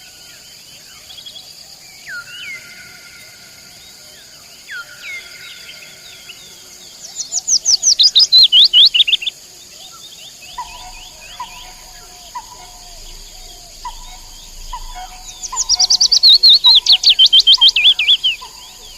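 Nightingale singing over a steady high chorus of crickets or other insects: long drawn whistles, then two loud, fast runs of rapidly repeated falling notes. A lower short note repeats about once a second through the middle.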